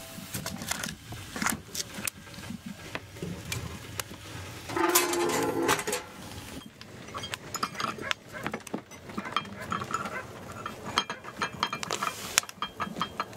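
Kitchen handling sounds at a wood stove: metal pots, bowls and utensils clinking and knocking, with rustling of a plastic bag, as fish is prepared and put into a pot of water. A louder, denser clatter comes about five seconds in.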